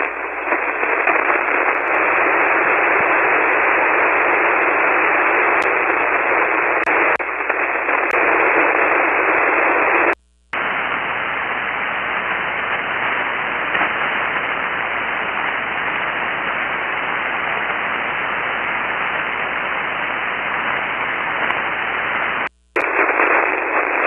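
Steady hiss of an amateur radio receiver tuned to an empty single-sideband channel on the 40-metre band, with no station answering the call. The hiss cuts out completely for a moment twice, about ten seconds in and again near the end.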